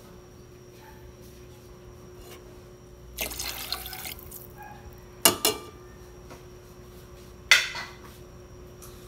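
Water being poured into a pot of chicken broth, splashing for about a second around three seconds in. Three brief, louder splashes follow later.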